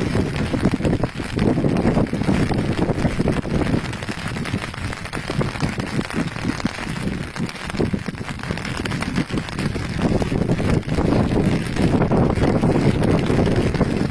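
Strong wind buffeting the microphone: a continuous gusty noise that eases off in the middle and picks up again near the end.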